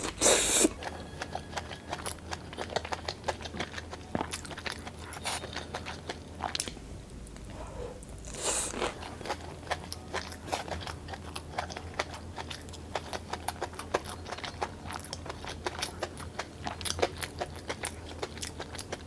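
Close-miked eating: a person chewing and crunching food, with a steady run of small crisp clicks and louder bites at the start and about eight and a half seconds in.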